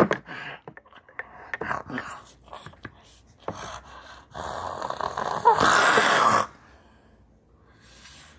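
Mouth noises of someone eating a handful of cooked rice: short wet clicks and smacks of chewing with a full mouth, then a loud breathy vocal noise through a full mouth lasting about two seconds, stopping suddenly.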